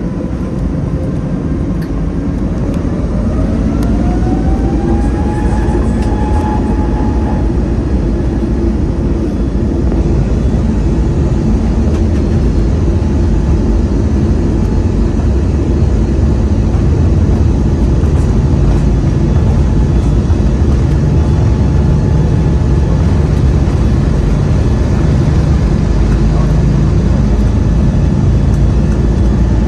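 Airbus A320neo's Pratt & Whitney geared turbofan engines at takeoff power: a whine rises in pitch over the first few seconds and then holds steady, over a deep rumble that grows slowly louder through the takeoff roll.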